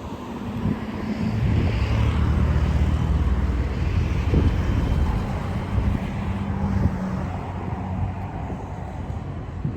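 Motor vehicle engine passing close on a city street, a low steady hum with tyre and road noise. It grows louder about a second in, is loudest for a few seconds, then fades near the end.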